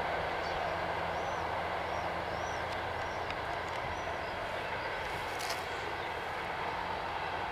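Passenger train hauled by a VL40u electric locomotive receding down the track: its coaches roll on the rails with a steady noise that slowly fades.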